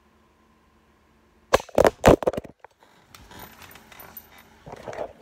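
A phone knocked over while recording: several loud thumps and knocks against its microphone, then rustling and scattered clicks as it lies and is handled.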